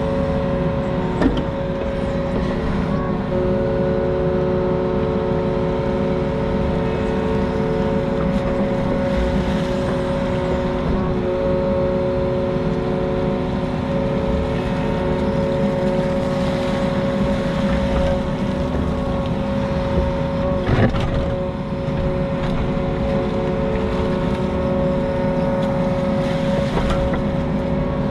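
Mini excavator engine running at a steady throttle, with a steady whine over the rumble and a couple of short knocks from the machine working.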